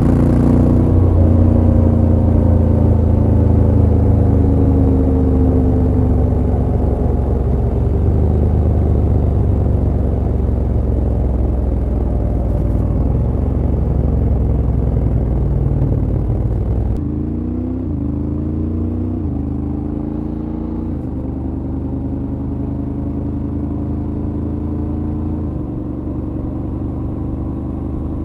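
Honda X-ADV 750's parallel-twin engine under way, its note sinking slowly and steadily. About 17 seconds in, the sound changes and the engine pulls up through the gears: three quick rises in pitch, each dropping back at an upshift, with another shift a few seconds later.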